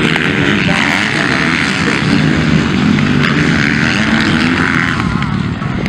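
Several motocross bikes racing on the track, their engines revving up and falling back, overlapping and continuous.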